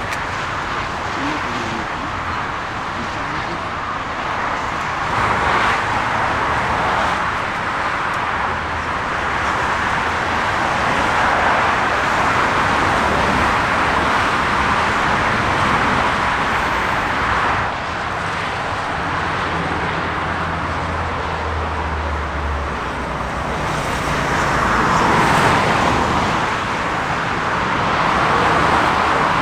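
Jet airliner engine noise: a loud, steady rush that swells and eases a few times, with a low hum in the middle stretch.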